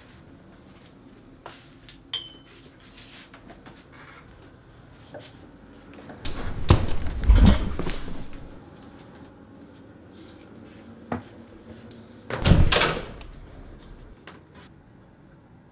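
Heavy thuds against a wooden door, a cluster of several hits about six seconds in and another short pair about twelve and a half seconds in, each with a deep low boom; faint small clicks and knocks in between.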